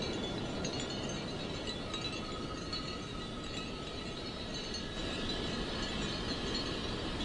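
Sea-waves sound effect: a steady wash of surf, with faint high ringing tones over it.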